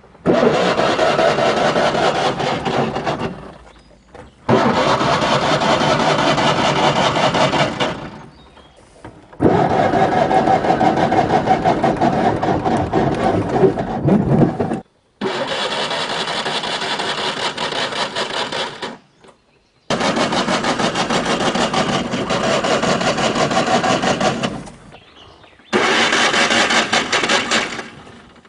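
Fiat 500's 499 cc two-cylinder engine being cranked over by its starter, worked by the pull lever between the front seats. Six separate cranking bursts of a few seconds each, with a rapid, even chugging.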